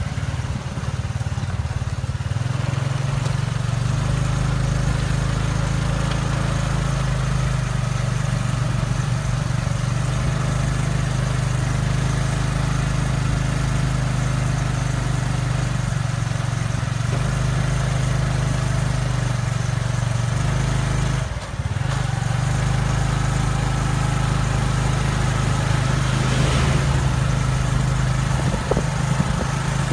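Motorcycle engine pulling a sidecar taxi, running steadily at low road speed with a low hum, heard from the sidecar seat. It picks up a few seconds in and dips briefly about two-thirds of the way through.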